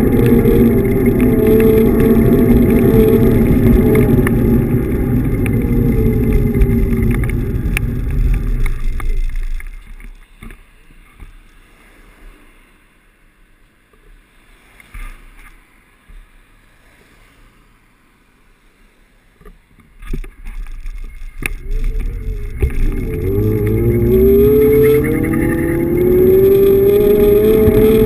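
Xiaomi M365 Pro electric scooter riding, with wind rushing over the mic and the hub motor whining. The whine falls as the scooter slows, then for about ten seconds there is little more than a few knocks while it stands still. Near the end the whine rises steadily as the scooter pulls away and speeds up.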